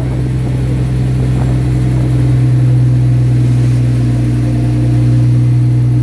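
Fishing boat's engine running steadily with a deep, even drone, while seawater washes across the deck.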